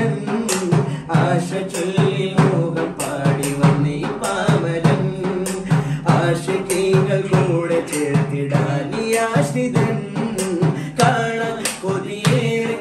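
Male voices singing an Islamic madh song together, the melody held and bending, over a steady percussion beat.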